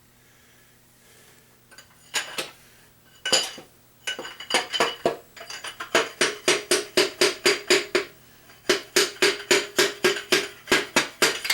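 Hammer tapping the number 1 piston and connecting rod out through the cylinder bore of a 1980s engine block. A few scattered knocks give way to steady runs of about four ringing metallic taps a second, broken by a short pause.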